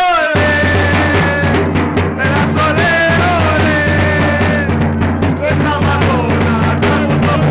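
Marching snare drum beaten hard and fast close to the microphone, with fans singing a chant over it and a steady low drone underneath. The drumming kicks in about a third of a second in.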